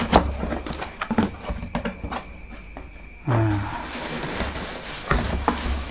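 Helmet packaging being opened by hand: scattered clicks and knocks of handling. About halfway in, background music starts.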